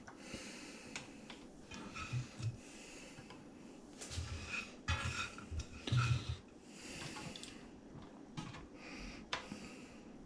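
A person breathing in and out close to the microphone, a series of soft breaths, with a few faint clicks from bacon pieces being picked out of a frying pan and laid on oysters in a baking tray.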